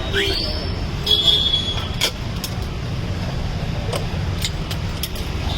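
Steady low rumble of road traffic, with several sharp clicks or knocks from about two seconds in and a brief high squeal about a second in.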